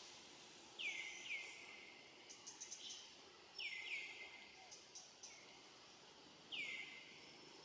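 A bird calling: five short calls that each sweep down in pitch, in two quick pairs and then a single, with a few faint clicks in between.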